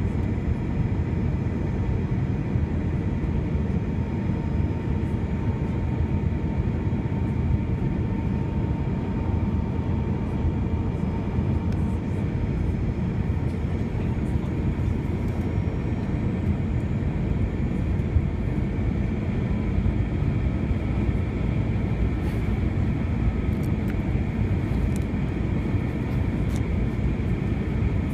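Steady cabin noise inside an Airbus A321 in flight, heard from a seat over the wing: engine and airflow noise, strongest at the low end, with a few faint steady high tones from the engines over it.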